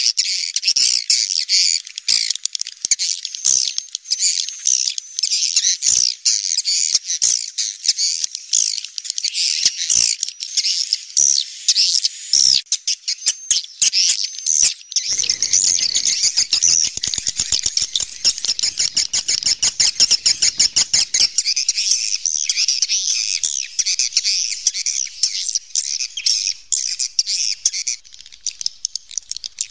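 A flock of swiftlets calling, a continuous dense twittering of high chirps: the walet call sound used to lure swiftlets to roost. Past the middle, a fast run of clicks lasts several seconds.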